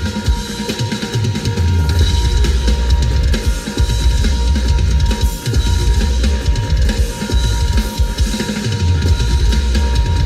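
Music with a drum kit and heavy, pulsing bass, played over a car's audio system.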